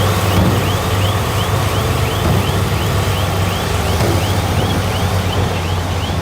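Heavy construction machine's diesel engine running steadily, with a high, repeated chirp about twice a second over it.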